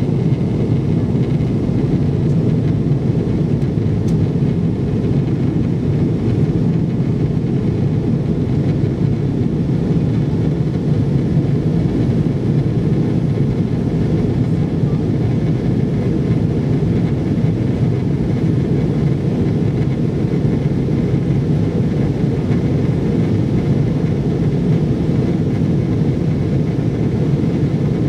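Steady cabin noise of a Boeing 777-200ER airliner in flight: a constant low roar of the jet engines and airflow, unchanging throughout.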